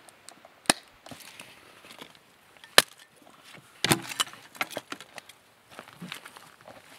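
Dry sticks and bark clacking and snapping as they are handled and stacked into a small fire lay: a string of sharp wooden knocks, the loudest a little under three seconds in, with a busier run of them from about four seconds.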